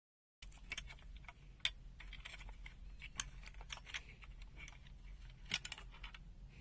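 Scattered small clicks and taps of a multimeter's plastic case and circuit board being handled as it is opened up. They start about half a second in, with two sharper clicks among them.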